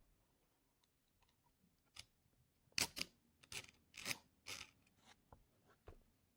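A third-hand soldering stand being handled: a few faint clicks and short scrapes as its clip arms are moved about, clustered in the middle.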